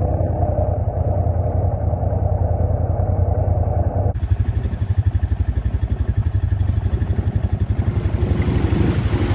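ATV engine running as the quad drives through muddy water, sounding muffled. About four seconds in, the sound switches to a Honda Rubicon 500 ATV engine running with a fast, even low pulse while the quad sits nearly submerged in deep water.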